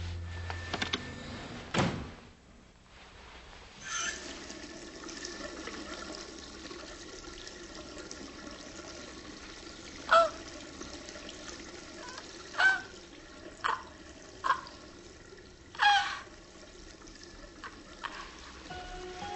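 A woman gives about five short, strangled, wordless gasps, one about halfway through and the rest close together near the end, as she strains and fails to speak. She has been struck mute by shock. Under them runs a faint steady rushing sound.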